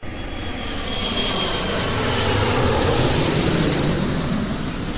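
Jet aircraft engine noise: a steady rush that swells slightly toward the middle, with a faint high whine near the start.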